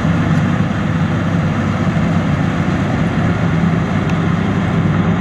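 Combine harvester engine running steadily, a constant low hum with dense mechanical clatter over it.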